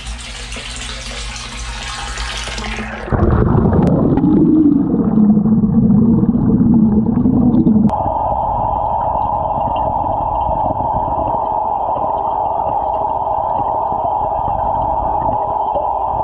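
Water pouring from a hose into a fish tank, first with a bright splashing hiss, then heard from under the water about three seconds in, where it turns muffled and low. From about eight seconds there is only a steady underwater hum with faint high tones.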